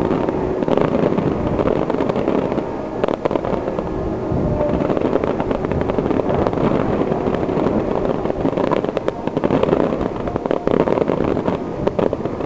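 Aerial fireworks: a dense, unbroken rattle of rapid reports, with a sharper single bang about three seconds in.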